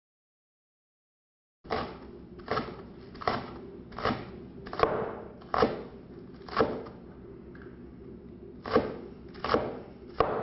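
A chef's knife chops spring onions on a wooden cutting board. After a second and a half of silence come about ten crisp strokes, roughly one every three-quarters of a second, with a brief pause about two-thirds of the way through.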